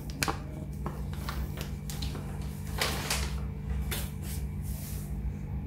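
Scattered light clicks and taps of kitchen utensils and containers being handled while cornflour is added to marinating chicken, over a steady low hum.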